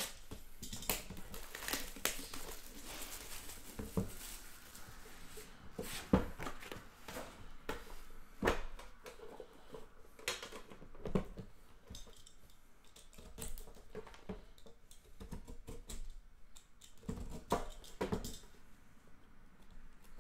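Unboxing a sealed Panini Immaculate Baseball hobby box by hand: shrink-wrap plastic cut and pulled off, the cardboard lid lifted and the small card box inside taken out. Irregular rustling with scattered clicks and small knocks, the sharpest about six seconds in.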